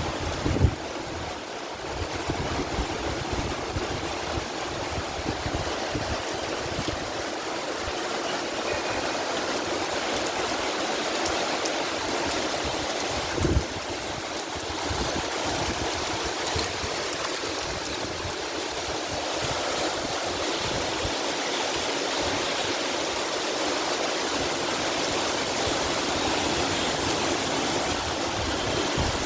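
Heavy rain pouring down steadily in a storm, with gusty wind rumbling on the microphone and two brief louder knocks, one just after the start and one about halfway through.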